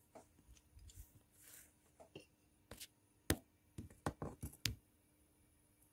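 Quiet handling noises: a few faint taps and clicks, a sharper click about three seconds in and a quick run of clicks a second later, over a faint steady hum.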